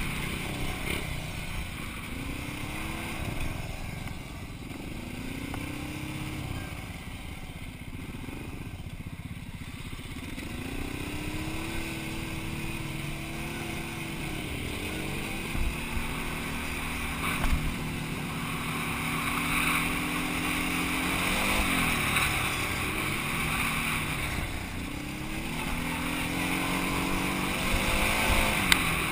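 Quad bike (ATV) engine revving up and down as it rides a rough dirt trail, its pitch rising and falling again and again, with wind noise on the microphone and a few sharp knocks from the bumps.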